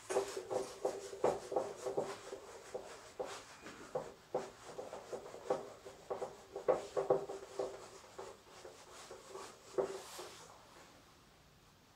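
Whiteboard duster rubbed back and forth over the board in quick, uneven strokes, wiping off marker; the rubbing stops about ten seconds in.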